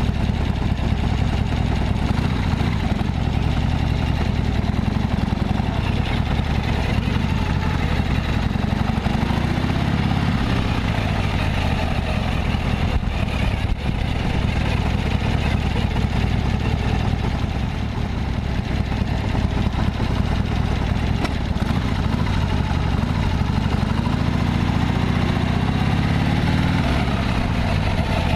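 Harley-Davidson XLH1200 Sportster's air-cooled 1200 cc V-twin running steadily, its engine speed rising and easing back twice. The owner is recording it for an abnormal engine noise.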